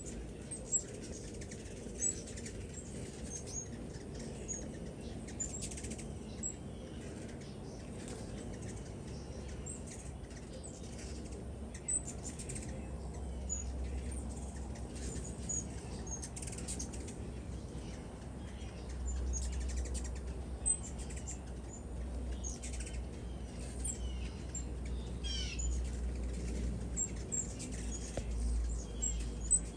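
Birds chirping, with many short scattered calls and quick sweeping notes, over a low rumble that gets stronger partway through.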